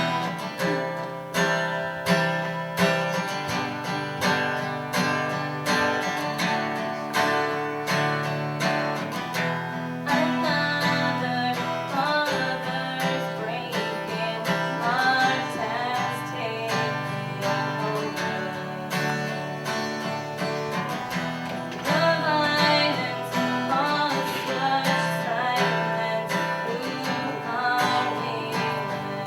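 Strummed acoustic guitar playing a steady rhythm. A voice comes in singing about ten seconds in, pauses, and returns a little past the middle.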